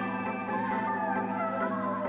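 Outro background music: sustained chords under a lead melody line that slides gradually downward.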